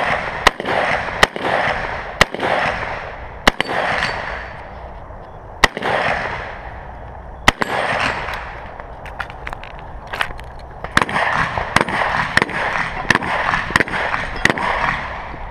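Rifle shots from an AR-style carbine, fired one at a time about a second or two apart, six of them, each with a ringing echo off the range. Near the end a quicker run of fainter sharp cracks and clicks follows.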